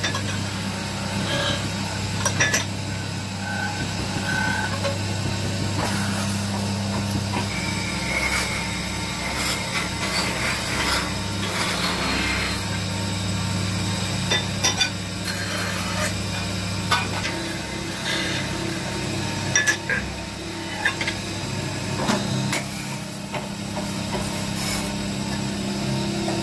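Lathe running with a steady low hum while a hand-held tool scrapes and cuts the spinning copper goblet blank, throwing off turnings, with scattered sharp clicks and knocks of metal on metal.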